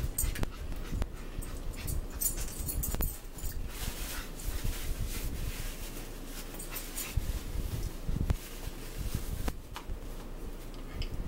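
A pet dog whining, among irregular clicks and rustles from people eating at the table.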